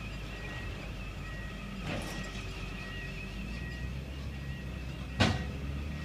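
Diesel engine of a log loader running steadily while it loads logs onto a log trailer, with a faint high beep repeating at an even pace. About five seconds in, one sharp loud clunk of a log being set onto the trailer.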